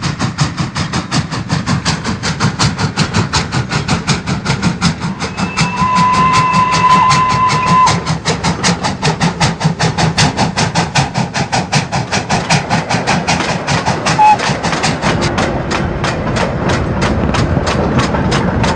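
Austerity 0-6-0 saddle tank steam locomotive working, its exhaust chuffing in a quick, even beat of about five a second. A steady whistle sounds for about two seconds some six seconds in, and a short tone comes near fourteen seconds.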